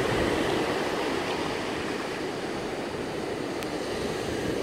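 Ocean surf breaking and washing up a sandy beach, a steady rushing.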